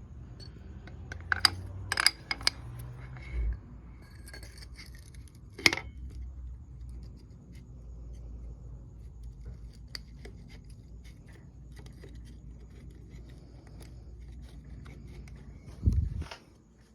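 Sharp metallic clicks and clinks of engine parts being handled while a piston ring compressor is fitted over a piston: a quick cluster of clicks a second or two in, one loud click later, and a low thump near the end.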